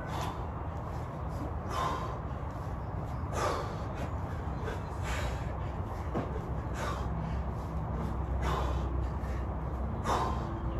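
A man's hard, rhythmic breathing during heavy kettlebell swings: a short forceful exhale about every 1.7 s, one with each swing of a 32 kg bell, over a steady low hum.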